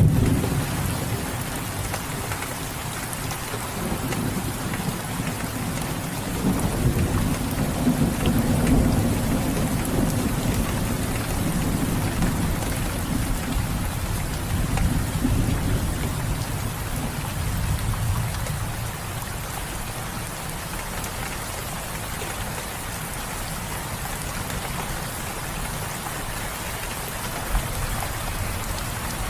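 Steady heavy rain falling, with low rolling thunder rumbling underneath in swells that fade away in the second half.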